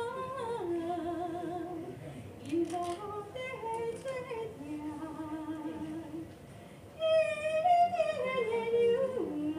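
A woman singing unaccompanied, holding long notes with vibrato and sliding between pitches; after a short quieter pause a little past halfway, she comes in louder on a higher phrase.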